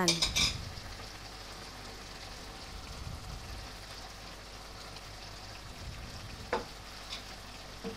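Vegetable stir-fry with broth simmering in a wok with a faint, steady sizzle, just after cornstarch slurry has been poured in to thicken the sauce. There is one light click near the end.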